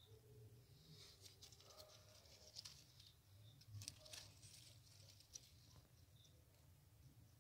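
Near silence, with faint scattered clicks and rustles from handling in the middle few seconds, over a low steady hum.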